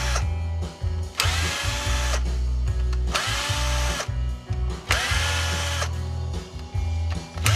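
Power drill run in short bursts of about a second, roughly every two seconds, its motor pitch settling as each burst starts, as when backing out screws.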